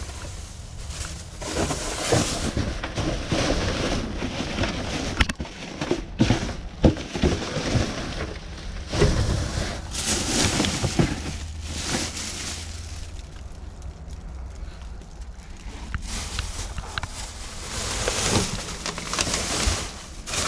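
Plastic trash bags rustling and crinkling as they are handled and shifted inside a metal dumpster, in uneven bursts with a few sharp knocks.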